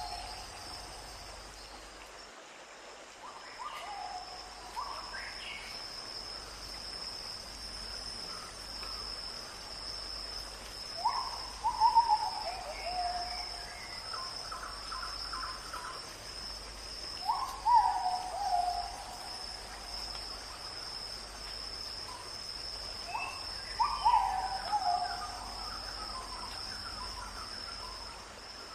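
A forest bird calling: short hooting notes that slide down in pitch, four times about six seconds apart. A steady high insect buzz runs beneath them.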